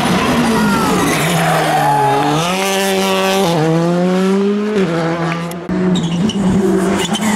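Rally car engine revving hard under acceleration, its pitch climbing and dropping back at two upshifts. About six seconds in the sound cuts to another rally car running.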